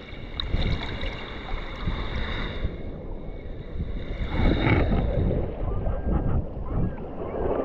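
Sea surf washing in with wind buffeting the microphone, swelling loudest about four and a half seconds in.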